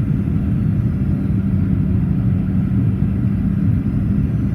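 Steady low cabin rumble of a Boeing 737-800 in flight, heard from inside the passenger cabin: engine and airflow noise with a constant low hum.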